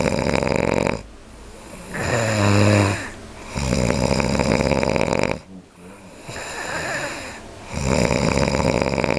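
A man snoring, with rattling snores on the breaths, about four of them, each one to two seconds long with quieter gaps between.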